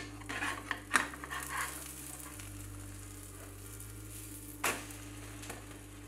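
Egg and bread frying in a non-stick pan: a steady sizzle, with a spatula clicking and scraping against the pan in the first two seconds (loudest about a second in) and one more knock on the pan near the end.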